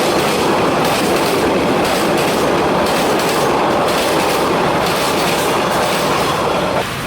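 Railway carriages rolling past, their wheels clattering over the rail joints in a steady rumble that cuts off abruptly just before the end.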